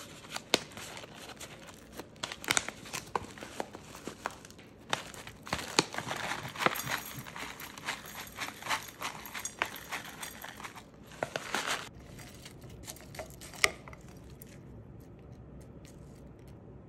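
Kraft paper bag crinkling as granola is shaken out of it, the clusters pattering and clicking into a ceramic bowl. The crinkling stops about twelve seconds in, leaving a few scattered clicks.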